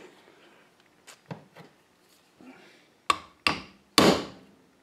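Mallet striking a plastic driver tool to tap the old bearing out of a Ford power steering box's valve housing. A few light knocks come first, then three sharp strikes about half a second apart near the end.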